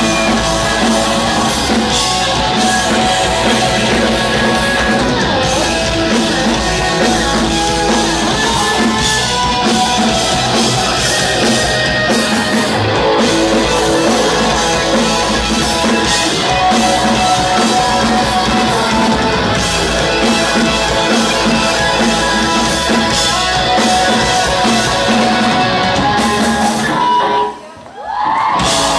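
Live rock band playing loudly: electric guitars, bass and drum kit. Near the end the music drops away for about a second, then comes back in at full level.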